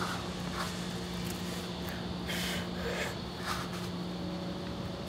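Short, faint breaths and exhales of a strongman straining with an Atlas stone held in his lap, over a steady low hum.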